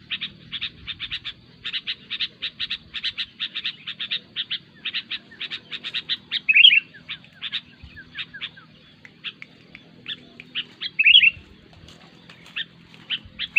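Sooty-headed bulbul (kutilang) calling noisily: rapid runs of short, sharp chattering notes, broken three times by a louder slurred call.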